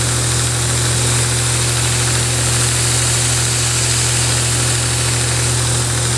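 Grizzly belt grinder running with a steady hum while the steel edge of a double-bevel broadhead is held lightly against the moving sanding belt, grinding it sharp and throwing sparks.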